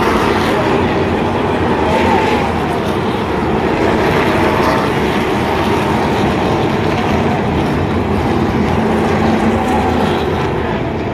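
NASCAR Truck Series race trucks' V8 engines running as the field passes on a pace lap before the start, a loud, steady drone.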